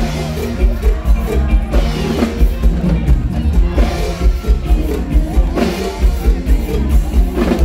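Live band music over a PA with a steady drum-kit beat, and a man singing into a microphone.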